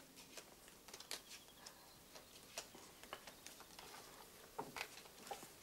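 Faint, irregular light clicks and taps of playing cards being handled at a card table during a bridge game.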